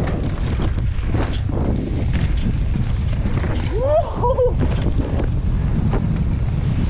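Heavy wind buffeting on a helmet-mounted camera microphone while riding a mountain bike downhill, with the rumble of tyres rolling over a dirt trail. A short wavering pitched sound comes about four seconds in.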